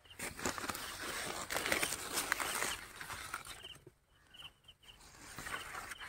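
Dry maize plants rustling and crackling as the stalks, leaves and husks are handled while cobs are picked. There is a loud stretch lasting about three and a half seconds, a short lull, then more rustling near the end.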